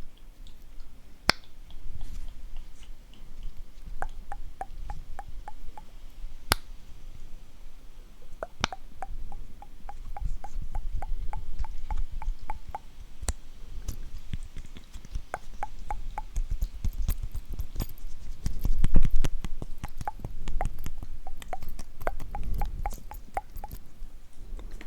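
Close-miked mouth sounds: long runs of tongue clicks, about five a second, each with a hollow pitch, broken by a few louder sharp clicks. Low thuds and rumbling swell up about three quarters of the way through.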